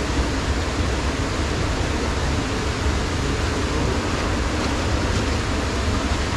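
Steady rushing of river rapids: an even, unbroken hiss with a low rumble underneath.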